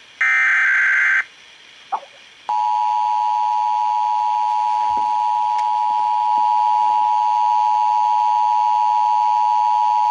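Emergency Alert System test received over FM radio. A one-second burst of screechy SAME digital header tones plays first. About a second later the two-tone EAS attention signal starts, 853 and 960 Hz sounded together, and holds steady and loud to the end.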